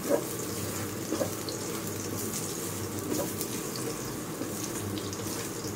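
Garlic cloves sizzling in hot oil in a nonstick frying pan, a steady hiss with small scattered pops. A spatula stirs and scrapes the pan now and then, over a steady low hum.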